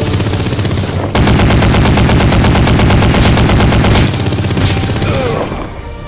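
Rapid automatic gunfire sound effect in long bursts, heaviest from about one second to four seconds in, then tailing off.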